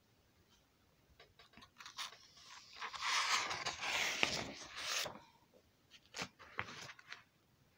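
Sheets of drawing paper rustling and crinkling as they are handled and swapped, loudest for about three seconds in the middle, followed by a few short scrapes and taps.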